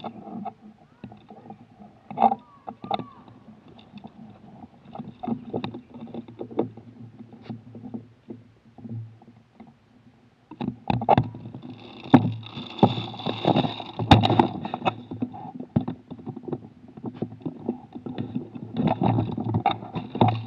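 Handling noise from a camera mounted on an airsoft rifle's rail: irregular knocks, clicks and rustling as the gun is carried and moved, busier in the second half.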